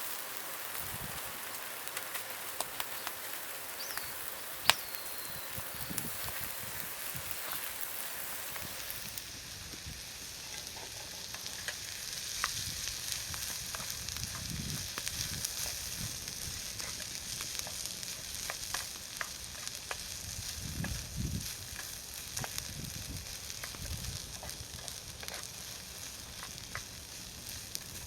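Food sizzling in an aluminium skillet over a small campfire, a steady hiss with scattered small clicks and scrapes of stirring and one sharp click about five seconds in. The sizzle changes abruptly about a third of the way through.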